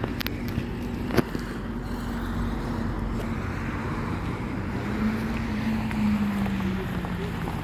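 Road traffic going by: steady car noise, with a vehicle's tone rising into prominence and dropping slightly in pitch as it passes near the end. A single sharp click about a second in.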